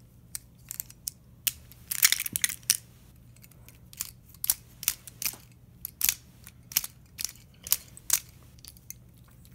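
Plastic pieces of a Calvin's Puzzle 3x3x5 cuboid clicking and knocking together as the puzzle is put back together by hand: a string of sharp clicks, busiest about two seconds in.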